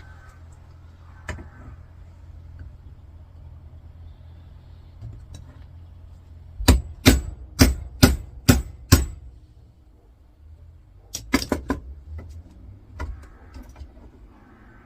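Hammer striking the welded steel core of a small transformer to break the weld: six sharp metallic blows about two a second, a cluster of quicker blows a couple of seconds later, and a few lighter knocks near the end.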